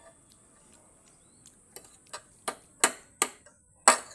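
Eating at close range: a few faint ticks, then about six sharp, irregularly spaced clicks and taps in the second half, the loudest near the end.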